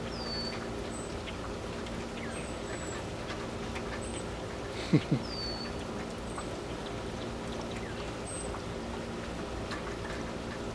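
Steady rain with birds calling over it: short downward whistles near the start and again about five seconds in, faint high chirps recurring throughout, and one brief, louder, low falling call about five seconds in.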